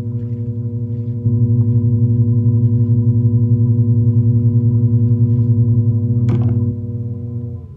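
Electric pottery wheel motor humming steadily as the wheel head spins, with a sharp tap a little after six seconds in. Near the end the hum slides down in pitch and fades as the wheel slows.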